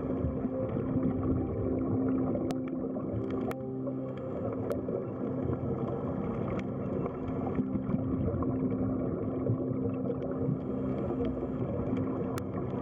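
Underwater ambience: a steady low hum over a noisy wash, with a few sharp clicks scattered through it.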